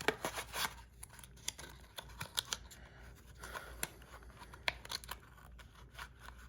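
Handling noise from a small fidget slider and its packaging: scattered light clicks and taps, a few sharper than the rest.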